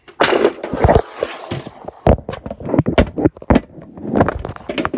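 Handling noise from the recording phone being moved and adjusted close to the microphone: a string of irregular loud knocks and bumps with rubbing in between.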